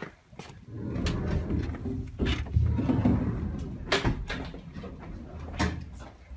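Low rumbling footfalls and knocks inside a parked commuter train car, with three sharp knocks about a second and a half apart.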